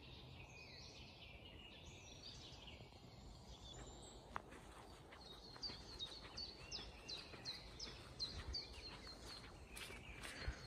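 Faint forest birdsong: a bird repeats short, falling notes, about three a second through the second half, with a couple of sharp clicks.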